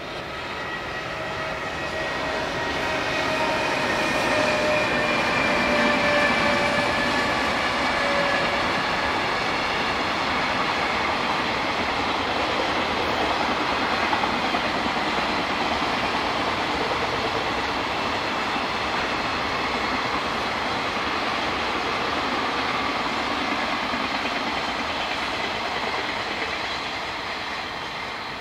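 Freight train with an EF210 electric locomotive passing: a whine in several tones slides slightly lower over the first several seconds, then a long string of container wagons rolls by with a steady rumble and wheel clatter that eases off near the end.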